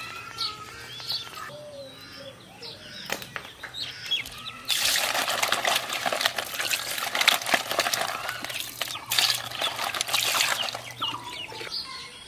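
Wet splashing and rattling for about six seconds, starting a little before halfway with a short break near the end: live climbing perch thrashing in a wet wicker basket. Birds chirp in the first seconds.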